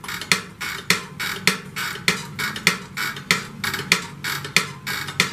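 Foot brake pedal of an SSR pit bike being pumped over and over by foot, making a fast, even run of sharp metallic clicks, about three a second. The pedal is being pumped to build pressure for bleeding air out of the brake line after a new master cylinder has been fitted.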